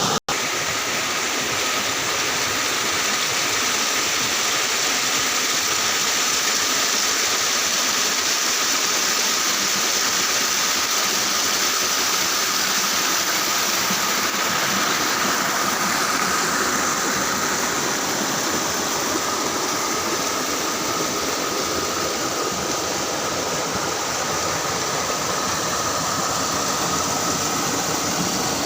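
Steady rushing of water pouring over a small waterfall in a river, an even hiss that holds at one level throughout.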